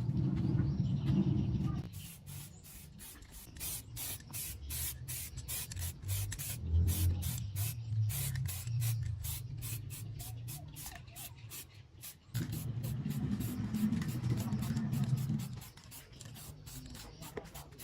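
Rapid, rhythmic hissing strokes, about three a second, like scrubbing or brushing on a hard surface. Under them, in two stretches, is a low hum.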